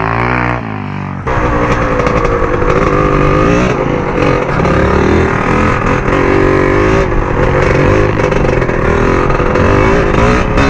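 Engine of a Chinese 110 cc pitbike revving up and down, then running under throttle while riding, its pitch rising and falling with the throttle. About a second in, the sound jumps suddenly louder.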